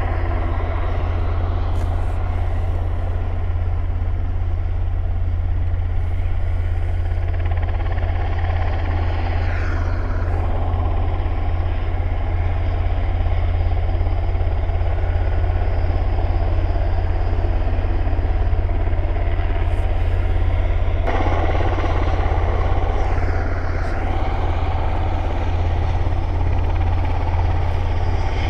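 Sikorsky S-92A helicopter taxiing with its rotors turning: a loud, steady turbine-and-rotor noise over a strong low hum. About two-thirds of the way through the sound turns abruptly brighter.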